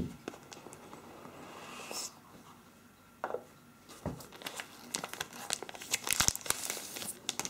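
Cardboard phone box handled and opened with a few soft knocks, then a run of sharp plastic crinkles and crackles as the phone is slid out of its clear plastic protective bag.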